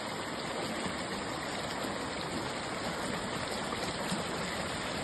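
A river stream flowing, making a steady, even rush of water.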